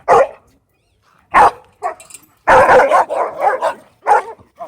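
A dog barking in sharp, irregular bursts, with a quicker run of several barks about halfway through.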